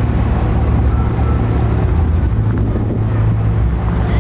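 Loud, steady low rumble of a motor vehicle.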